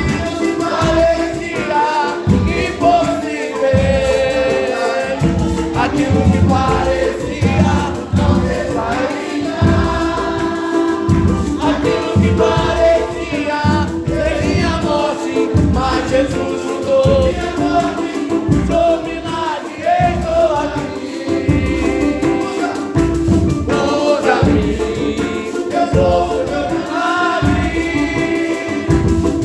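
Choir singing gospel music over a band with a steady beat.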